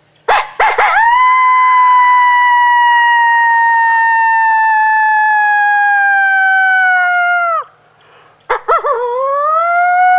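Coyote lone howl imitated on a two-reed diaphragm howler call: a few quick broken notes break into one long, high howl that slowly falls in pitch and drops off sharply after about seven seconds. About a second later a second howl starts with the same broken notes and rises into another held tone.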